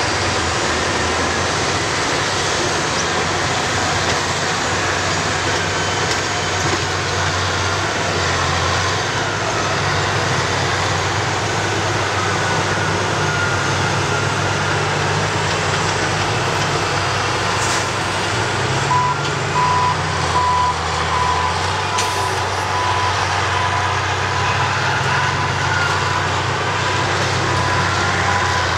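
Caterpillar 657 twin-engine scrapers' diesel engines running steadily under a rushing hiss, their pitch rising a little over halfway through. From about two-thirds of the way in, a reversing alarm beeps evenly, about two beeps a second.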